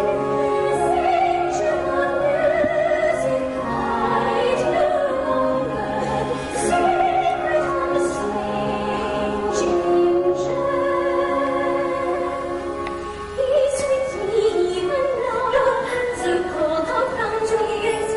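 Stage-musical singing with orchestra: operatic voices holding long, wavering notes over the accompaniment, with a short lull about two-thirds of the way through before the next phrase.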